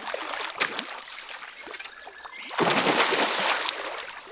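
Water splashing in a creek, with a louder burst of splashing about two and a half seconds in that lasts about a second, over a steady high-pitched buzz.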